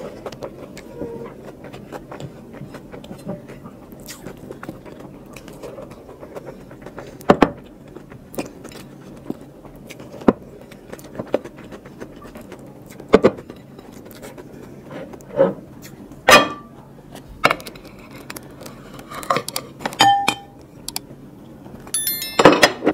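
Close-miked eating by hand: mouth sounds of chewing rice, with fingers scraping a ceramic plate and scattered sharp clicks and taps. Near the end, ceramic plates clink and ring as an empty plate is picked up.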